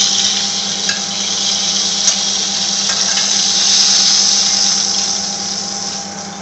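Hot vegetable oil sizzling steadily in a frying pan after shallow-frying shami kebabs, over a steady low hum. The sizzle eases slightly near the end.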